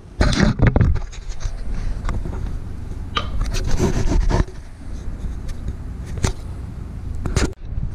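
Camera handling noise: the microphone being rubbed and fumbled, with a low rumble and scattered knocks.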